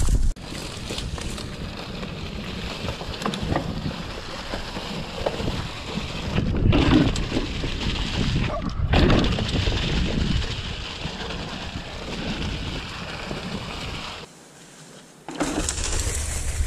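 Mountain bike tyres rolling and crunching through dry fallen leaves on a dirt trail, with wind rumbling on the camera microphone. The noise shifts abruptly several times, dropping briefly near the end.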